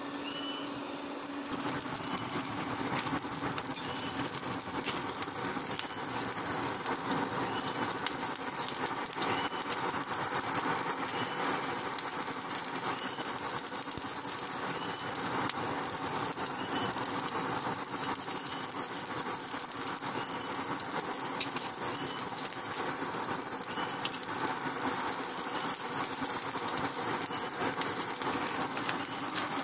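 Charcoal forge fire driven by a steady air blast: a constant rushing with many small crackles and pops from the burning coals, as a golok blade heats up for hardening.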